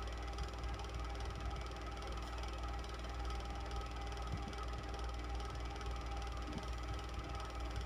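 Electric fan running steadily: a low motor hum under an even whir of air from the blades, with a few faint steady tones over it.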